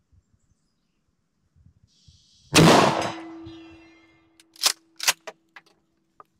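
A single shot from a pump-action Mossberg shotgun, its echo dying away over a second or so, with a faint steady ring from the steel gong struck downrange. Then two sharp clacks half a second apart as the pump is racked back and forward, and a few small clicks after.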